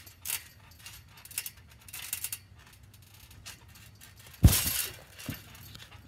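A person falling flat onto their back on a trampoline bed from a handstand: a sudden loud thump with a clinking rattle about four and a half seconds in, then a smaller bounce. Before it, a few light taps and rustles on the mat.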